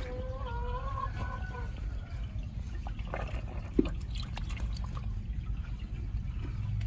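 Shallow water splashing and sloshing as a fish thrashes in a puddle on concrete and is grabbed by hand, with a few sharp knocks. A brief pitched call sounds near the start, over a steady low rumble.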